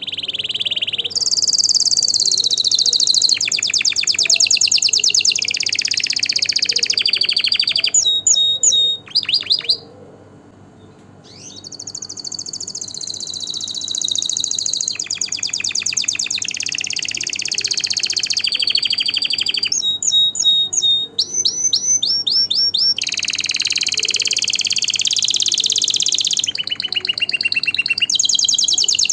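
Domestic canary singing its long song: fast trills and rolling phrases one after another, breaking off for a couple of seconds about ten seconds in before starting up again.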